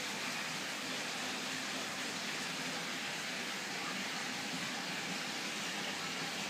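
Steady, even hiss of aquarium filters and circulating water.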